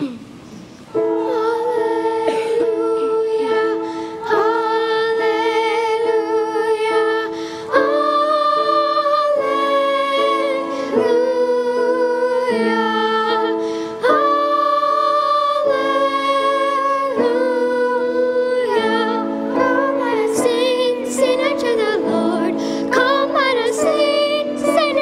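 Children's choir singing slow, sustained chords. The notes are held and change every second or two.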